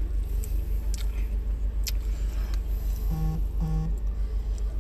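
Low steady rumble of a car idling, heard from inside the cabin, throbbing several times a second. Over it come a few mouth clicks from eating, and two short closed-mouth hums about three seconds in.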